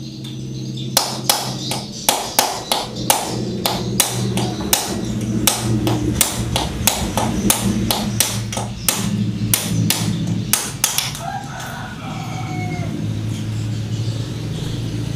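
Repeated hammer blows on a metal drift, knocking a worn rear-hub bearing out of a Yamaha Soul GT scooter's gear housing, about three strikes a second, stopping after about ten seconds. A rooster crows near the end.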